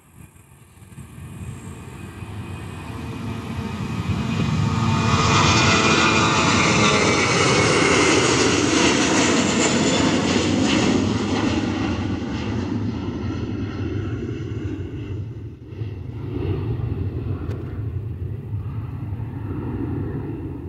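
Airliner passing close by: engine noise swells over about four seconds and peaks with a whine that falls in pitch as it goes past, then settles into a steady lower rumble.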